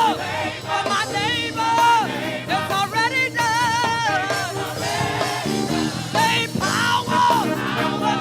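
Gospel music: a singer's melismatic vocal lines over a band, with a choir.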